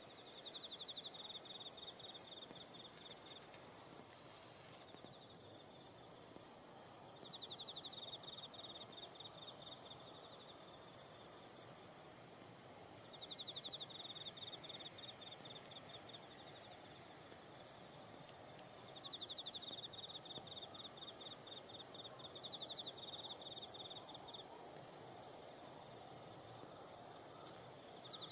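Faint insect trilling in rapid pulses, in bouts of a few seconds that come back about every six seconds, over a steady high-pitched hiss of other insects and faint open-air noise.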